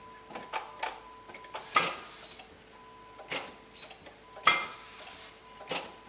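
A Dodge SUV's starter solenoid and relays clicking as the key is turned on a drained battery that is too flat to crank the engine. It is a series of sharp clicks, the loudest two about two seconds in and about four and a half seconds in.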